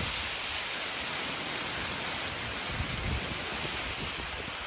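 Steady hiss of rain during a thunderstorm, with low rumbles underneath that swell about three seconds in.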